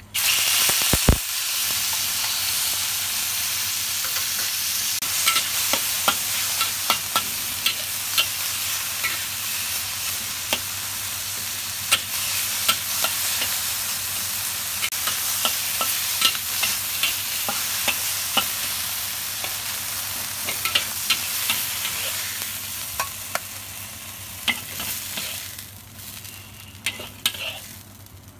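Diced chicken thigh hitting a hot oiled wok and sizzling, the sizzle starting all at once, with a knock about a second in. A spatula scrapes and clicks against the wok as the pieces are stir-fried, and the sizzle dies down near the end.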